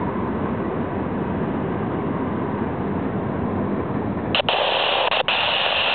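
Steady rumbling noise of a long mixed freight train rolling by. About four seconds in, a louder hiss of radio static cuts in abruptly and drops out briefly twice.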